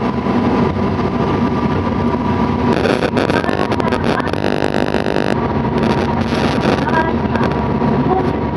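A diesel railcar running between stations, with a steady engine and wheel noise. About halfway through there is a short spell of clicking, then a ringing tone that lasts about a second.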